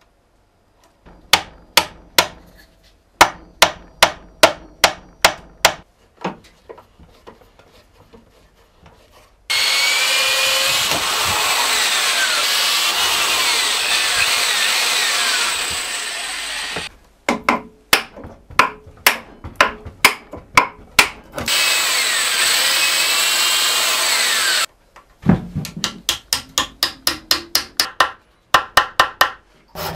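A wooden mallet driving glued wooden pegs into holes in a shaving horse, in runs of sharp knocks about two or three a second. Between them an electric drill bores through a wooden beam twice, once for about seven seconds and later for about three.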